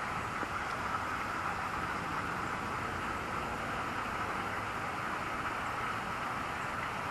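Steady, even outdoor hiss with no distinct sounds in it.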